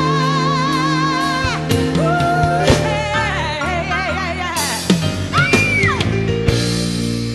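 Live soul ballad with a full band: a female singer's wordless ad-lib over sustained band chords, a long held note with wide vibrato, then wavering runs and a high belted note that swoops up and falls away about five seconds in.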